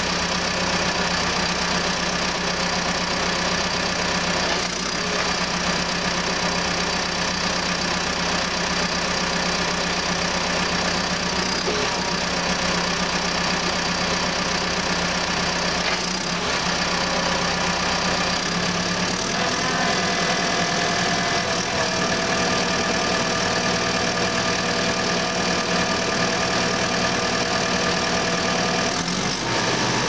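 Caterpillar D4K bulldozer's diesel engine running steadily during start-up, while the hydraulics are cycled to work the ripper and blade. About two-thirds through, the engine note changes and a steady higher whine joins in, holding until near the end.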